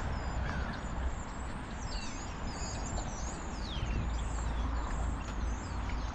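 Small birds chirping, with short high whistles and a few falling glides, over the steady footsteps of someone walking on pavement and a low rumble.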